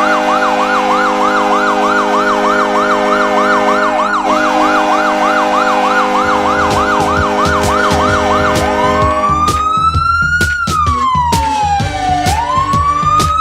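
Hockey goal horn: a steady, chord-like horn blast under a fast-yelping siren, about three yelps a second. A little over halfway through, the siren changes to a slow rising and falling wail, and a drum beat comes in as the goal music starts.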